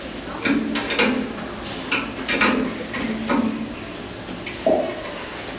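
Irregular knocks and clatter of hard objects being handled and set down, about eight over five seconds, with one louder knock near the end.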